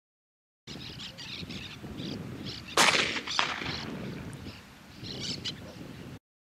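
Birds chirping and calling over a large flock of doves in flight. A loud shotgun shot rings out about three seconds in, with a fainter shot just after.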